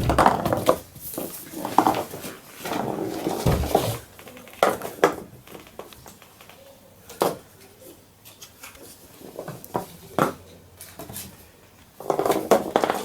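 Maine Coon kittens moving about and knocking things: irregular clattering knocks and rustles. The clatter is busy at first, thins to scattered single knocks, and picks up again near the end.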